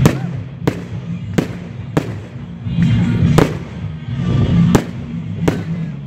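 Aerial fireworks bursting in quick succession: about seven sharp bangs, spaced unevenly a little under a second to about a second and a half apart.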